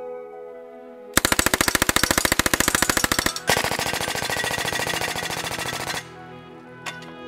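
Two long bursts of full-auto fire from an MK760 9mm open-bolt submachine gun, a copy of the Smith & Wesson 76 / Swedish K: the first starts about a second in, the second follows a brief break and stops about six seconds in. Background music plays before and after the bursts.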